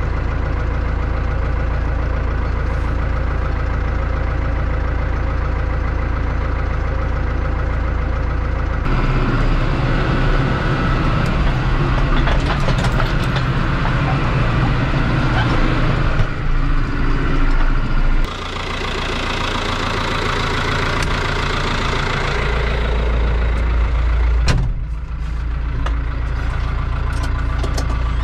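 New Holland TD85 tractor's turbo diesel engine idling steadily. About nine seconds in it gives way to a louder, rattling run as the tractor tows a disc harrow. Near the two-thirds mark the sound turns brighter and hissier, and there is a single sharp knock.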